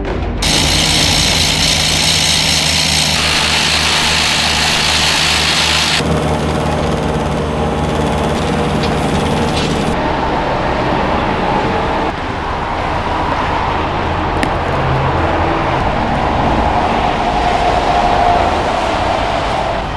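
Steady road-vehicle and traffic noise. Its character changes abruptly several times from one take to the next.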